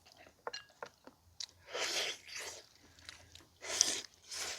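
A man eating boiled pig's trotters: chewing and biting noises, a few sharp clicks at first, then louder wet mouth noises about two seconds in and again near the end.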